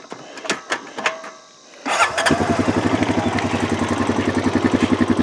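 A few light knocks, then about two seconds in the four-wheeler's (ATV's) engine starts and runs with an even pulsing beat.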